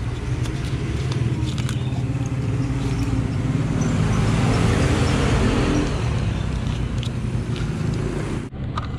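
A motor vehicle engine idling close by, a steady low hum. A louder rushing noise swells and fades around the middle.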